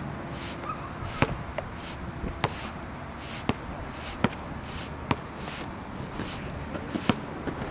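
A plastic screw-in beach umbrella sand anchor being twisted into beach sand by hand: a rhythmic scraping hiss about every half second as it turns, with sharp clicks every second or so that are the loudest sounds.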